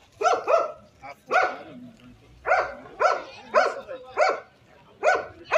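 A dog barking repeatedly, about eight short loud barks, some coming in quick pairs.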